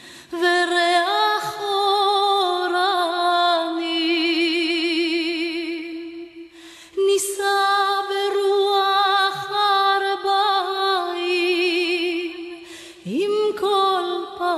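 A woman singing a slow song with long held notes and strong vibrato, with little or no accompaniment, pausing for breath between phrases about six seconds in and again near the end.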